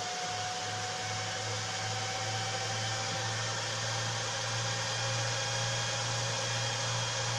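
Cooling fans of a server power supply running at speed, a steady whir with a whine that rises slightly in pitch, over a low hum: the supply has powered up on mains and is working. Near the end the whine starts to slide down as the fans slow.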